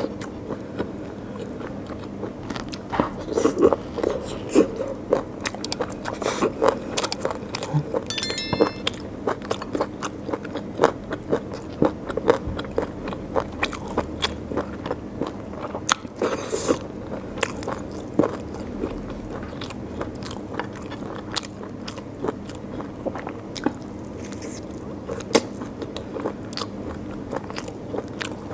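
Close-miked eating sounds of mutton curry and rice eaten by hand: wet chewing and lip smacks, with fingers tearing meat from a mutton leg bone and squishing through rice. Many short sharp clicks and smacks come in quick irregular succession.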